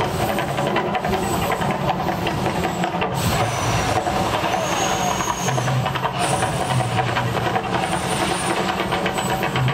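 The Mirage volcano attraction erupting: a loud, continuous hissing rush from its gas fire jets and water spray, with a low drone that comes and goes beneath it.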